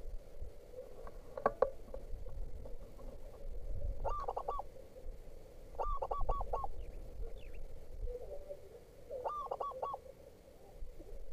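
Zebra dove cooing: quick bursts of three or four short notes, repeated every two to three seconds.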